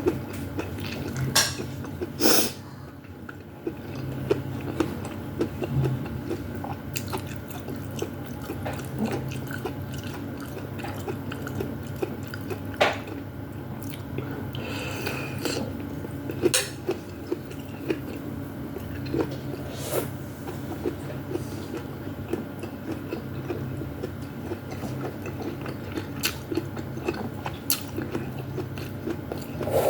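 Eating soup from a bowl with a spoon: close-up chewing of vegetables and meatballs, with the spoon clinking sharply against the bowl every few seconds. A low steady hum runs underneath.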